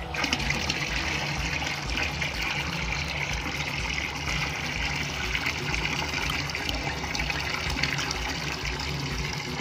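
A bucketful of liquid poured in a steady stream into a large basin already full of liquid, a continuous splashing pour.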